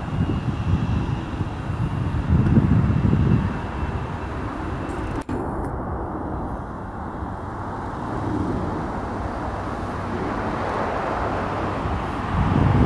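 Double-stack container freight train cars rolling past at a distance, a steady low rumble of wheels on rail, with wind buffeting the microphone in louder surges. The audio drops out for an instant about five seconds in.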